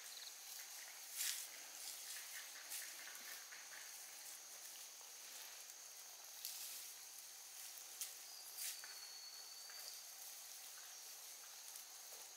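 Grass and weeds rustling and snapping as they are gripped and pulled up by hand, in short scattered bursts. A steady high-pitched hum runs underneath.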